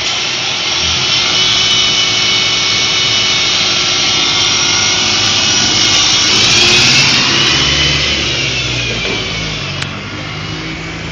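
Mercedes-Benz city bus's diesel engine running up close, with a loud high whine over a dense hiss; the whine rises and falls slightly about two-thirds of the way through, while a low engine hum grows stronger.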